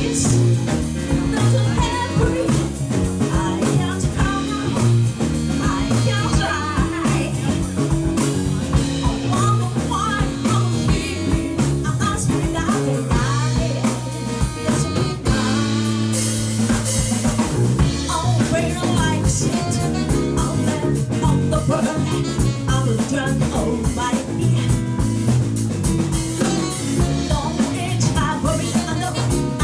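Live band playing a song, with a drum kit keeping the beat under bass and other instruments.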